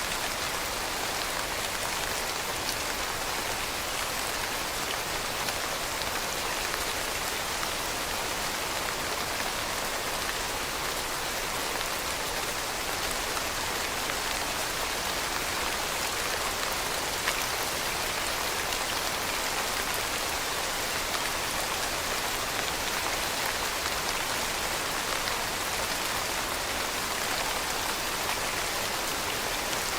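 Steady rain, an even hiss with a fine patter of individual drops striking a surface.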